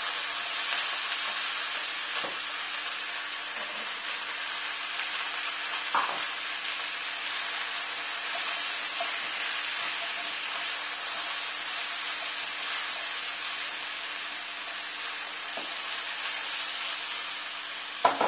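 Broccoli, onion and freshly added peppers sizzling in oil in a wok on high heat, a steady hiss. They are stirred with a plastic spatula, giving a few light scrapes, and there is a sharper knock near the end.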